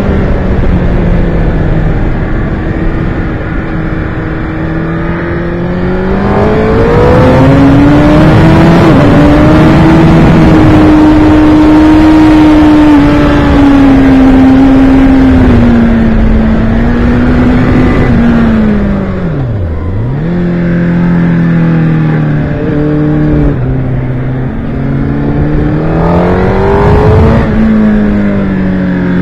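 Engine of a vehicle lapping a race circuit at speed, heard onboard. Its pitch climbs under acceleration, holds high, drops sharply about twenty seconds in as it slows for a bend, then climbs again and falls back near the end.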